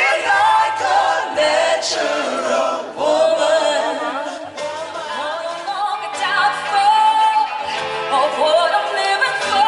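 A woman singing live into a handheld microphone over musical accompaniment. She holds long notes about six seconds in and again near the end.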